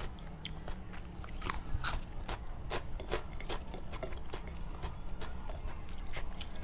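Close-miked chewing of gulai tempoyak, a fermented-durian curry: wet mouth clicks and smacks, a few a second, over a steady high-pitched whine.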